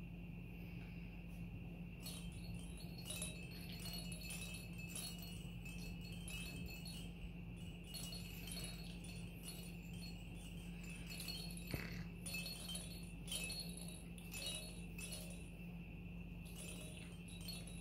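Hanging plastic chains, rings and rattle toys on a puppy play gym clinking and jingling in irregular clusters of small clicks as puppies tug and chew on them, with one sharper click about twelve seconds in.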